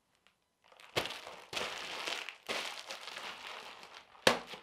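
Plastic bubble wrap being handled and crumpled: a crackling rustle in several stretches, then a single sharp snap near the end.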